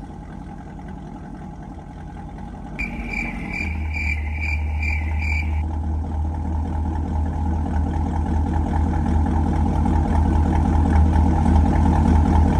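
Chevrolet SS engine running, its low exhaust drone coming up strongly a few seconds in and growing louder. About three seconds in, a chime inside the car dings about seven times in quick succession, then stops.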